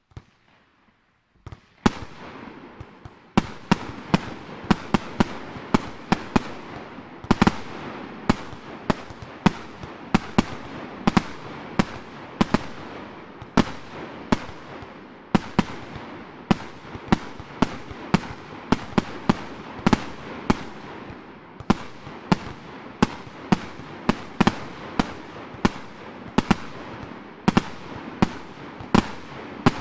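A 100-shot, 30 mm fireworks battery (cake) firing shot after shot: sharp bangs of the shells, roughly two a second, over a continuous hiss. The bangs begin about two seconds in and keep going without a break.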